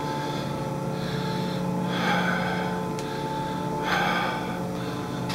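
Steady machinery hum with several held tones, with two short hissing rushes of noise, about two seconds in and again about four seconds in.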